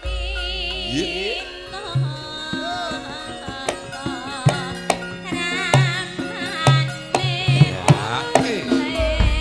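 Javanese gamelan music: kendang hand-drum strokes in a steady rhythm, under a high wavering sung melody line and a held metallic tone.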